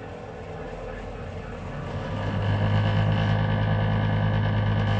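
Tennis ball machine's motor starting about two seconds in and then running with a steady hum.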